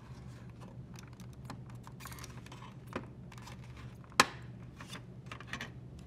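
Small irregular plastic clicks and creaks as the snap tabs holding a display board in an LG washer's plastic control panel are worked free, with one louder, sharper snap about four seconds in.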